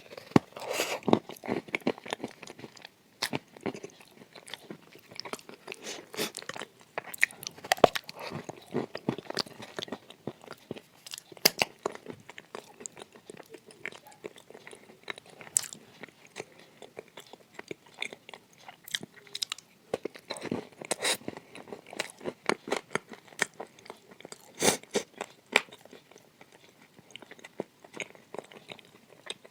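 Close-up crunching and chewing of dry edible clay: sharp, irregular crunches as pieces are bitten, then crackly chewing, with louder bites at intervals.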